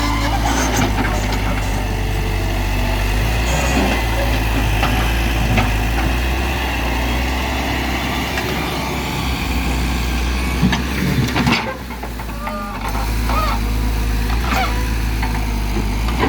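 Heavy diesel machinery engine running steadily, with a few brief knocks.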